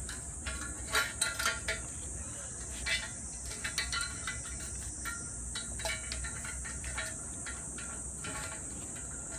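Scattered light metal clicks and clinks as galvanized chain link fence hardware (band clamp, tension bar and bolt) is handled and slid along a steel fence post against the wire mesh, over a steady high-pitched hiss.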